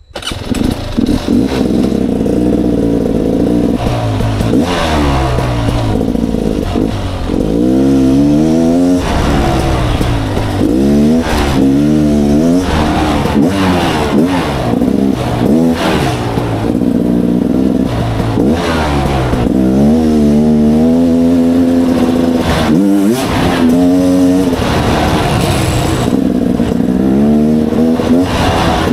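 Off-road motorcycle engine revving up and dropping back over and over as the bike is ridden along a dirt trail, its pitch climbing and falling with the throttle and gear changes.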